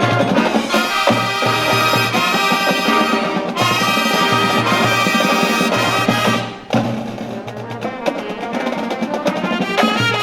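Marching band playing with brass and drums, with a steady beat. The music drops away briefly about six and a half seconds in, then carries on a little quieter.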